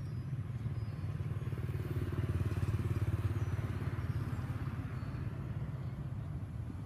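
Low engine rumble of a passing motor vehicle, swelling about two seconds in and easing off again.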